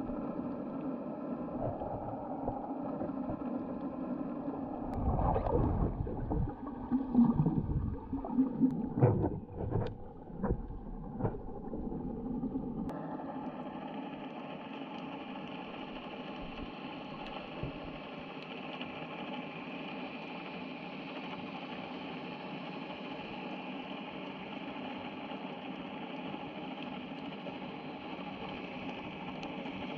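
Underwater sound from a snorkeller's camera: a steady hum made of several held tones, broken from about five to twelve seconds in by loud, irregular low thumps and swishes of water. About thirteen seconds in the sound changes abruptly to a smoother, brighter hiss over the hum.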